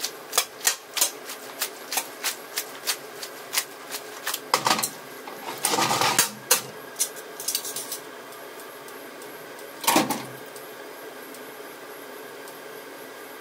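Metal tongs clicking and scraping against a frying pan as linguine is tossed through a cream sauce: quick clicks, about two or three a second, for the first several seconds, with a few louder scrapes, the last about ten seconds in. After that only a steady background hum.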